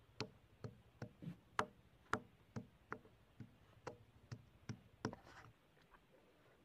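Stone pestle pounding ginger, garlic and green chilli in a stone mortar to crush them into a paste: about a dozen short knocks, roughly two a second, stopping about five seconds in.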